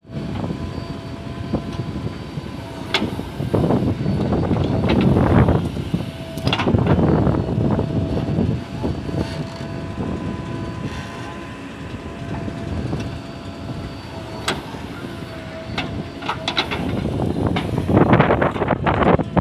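JCB backhoe loader's diesel engine running and surging under load as it digs, swelling and easing every few seconds. A thin steady whine sits over it, with a few sharp knocks here and there.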